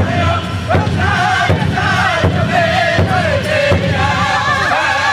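Powwow drum group singing together in high voices over a steady, even beat on a large shared drum struck by several drummers at once, about two to three strokes a second.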